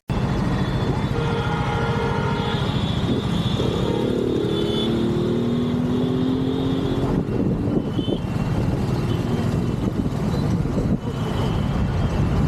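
Road traffic noise: vehicle engines running steadily, with several drawn-out tones sliding in pitch during the first half.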